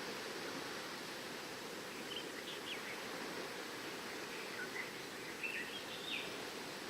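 Steady wash of distant surf and wind, with a small bird giving short chirps twice: about two seconds in, and again as a run of chirps from about four and a half to six seconds.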